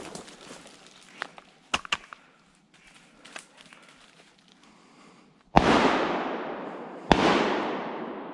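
Two shotgun shots about a second and a half apart, each a sharp report followed by a long echo that dies away. A few faint snaps of brush come before them.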